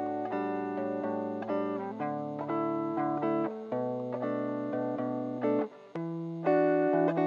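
Background music: a plucked guitar melody over a sustained bass line, with a brief pause about six seconds in before it picks up again.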